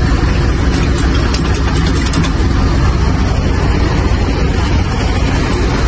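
Heavy diesel truck engine idling with a steady low rumble, with a few faint light ticks about one to two seconds in.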